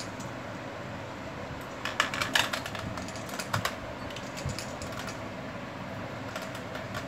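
Steady hum of a room fan, with a few short runs of light clicking and tapping about two seconds in, briefly again a second and a half later, and near the end.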